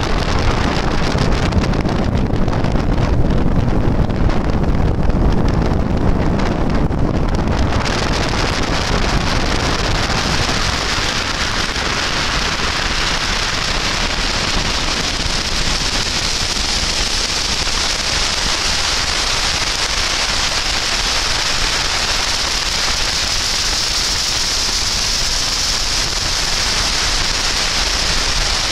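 Meteor-type hydrofoil passing on the river: a low rumble for about the first eight seconds, then a steady high hiss.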